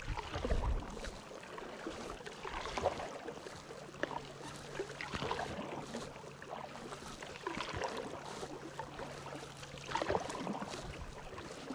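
Kayak paddle strokes, the blades dipping and splashing in the lake water with dripping and lapping between them, a louder splash every two to three seconds.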